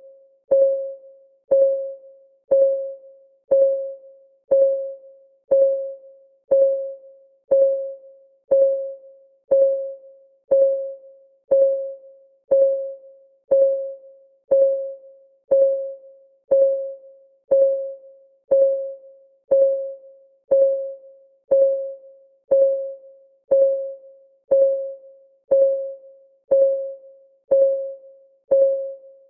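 Countdown timer's clock-ticking sound effect: one short, pitched tick every second, each fading quickly, in a steady, unchanging rhythm.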